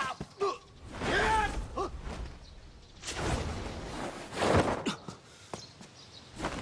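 Action-scene soundtrack: short wordless vocal exclamations, then two rushing whooshes and a few faint knocks.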